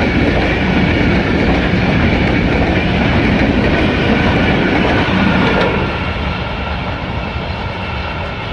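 Express passenger train passing at high speed: loud, steady rush of wheels on rail and coaches going by. It drops off about six seconds in as the train moves away.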